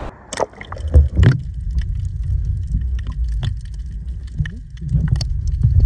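Muffled water movement heard underwater: a steady low rumble with scattered clicks and knocks, several of them in the first second and a half and again about five seconds in.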